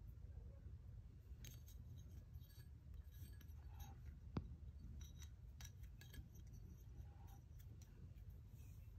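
Near silence with faint scattered light clicks and one sharper click about four and a half seconds in.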